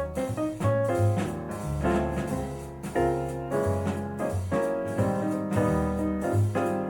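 Piano music with a bass line under it, played back through a pair of JBL 4307 studio monitor speakers.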